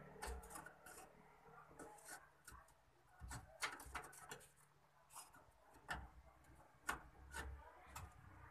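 Faint, irregular metal clicks and taps as a long steel bar is worked against a car's upper suspension ball joint, with the brake disc held steady, while the joint is being freed from its mount.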